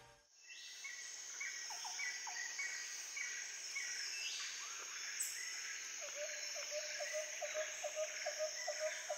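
Tropical jungle ambience: a steady high insect drone, with short repeated chirps at about two a second over the first few seconds. From about six seconds in, a regular low call comes in at about three a second.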